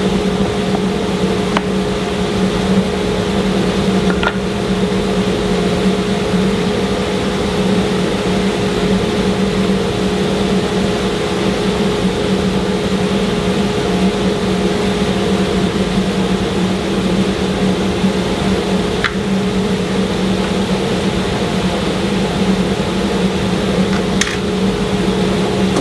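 Table saw and shop dust collection running steadily: a constant machine hum with two steady tones under an even rushing noise. A few faint clicks of wooden pieces being set into the fixture.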